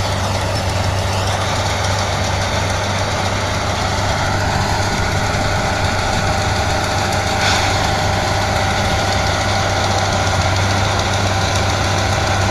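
CLAAS Mercator 75 combine harvester running while harvesting, its engine giving a steady, unbroken low drone.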